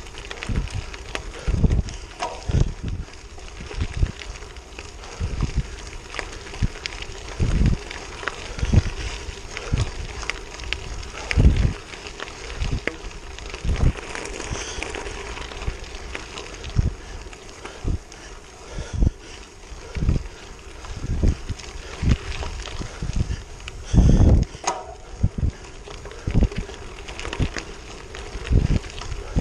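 Road bike rolling on a wet gravel road, heard from a handlebar-mounted camera: a steady hiss of tyres on gravel with irregular low rumbles about once a second from wind and jolts on the microphone.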